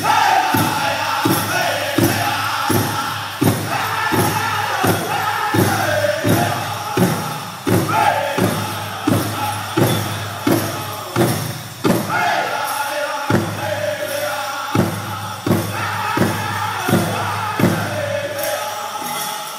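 Powwow drum group singing in unison, high voices over a large drum struck in a steady beat, about three strokes every two seconds.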